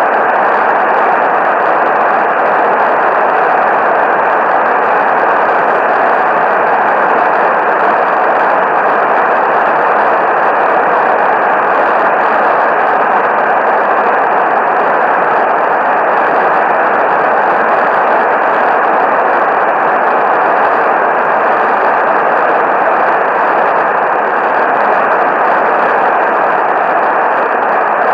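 Steady radio static, a loud, even hiss with a muffled, narrow-band sound that stays unchanged throughout.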